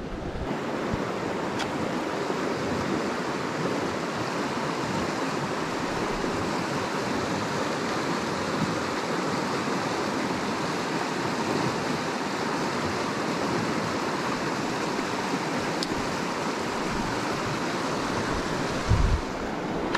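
Small rocky stream rushing steadily over shallow riffles, with a brief low thump about a second before the end.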